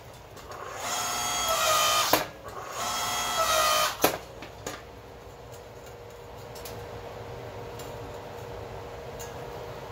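Electric 4–5 ton log splitter, converted to a forge press, with its motor and hydraulic pump running in two short strokes of a little over a second each. The pitch steps up near the end of each stroke, and each stroke ends in a sharp click. From about four seconds in, only a quieter steady hum remains.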